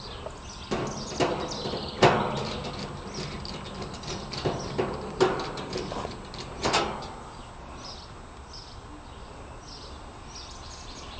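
Several sharp knocks and clatters, the loudest about two seconds in, then a quieter stretch with faint bird chirps.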